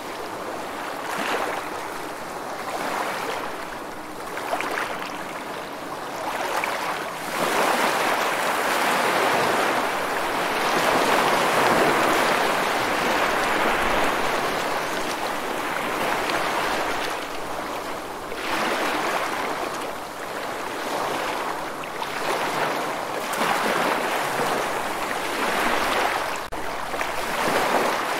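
Stormy sea: a steady rush of waves and wind that swells and eases every few seconds, with one long surge building from about a quarter of the way in. No thunder is heard.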